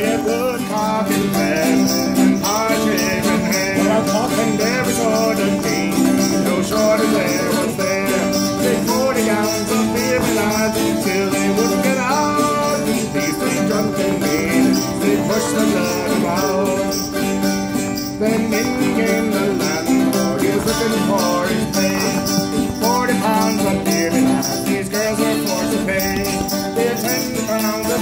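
Acoustic folk music played on several strummed guitars and other plucked string instruments.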